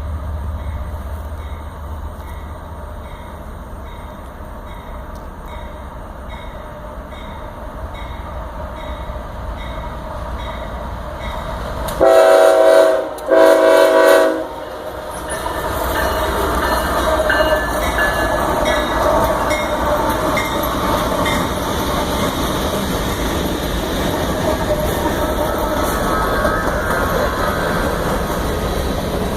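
Union Pacific freight train approaching: a low rumble with a faint regular ticking about twice a second, then two long blasts of the locomotive's multi-tone air horn about twelve seconds in. The train then passes close by with a loud, steady rumble and wheel clatter.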